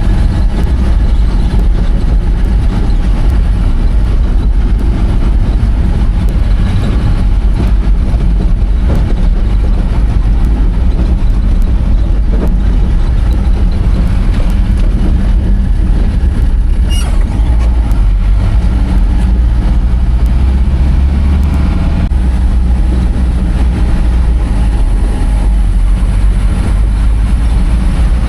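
Heavy vehicle engine running steadily with a loud, continuous low rumble.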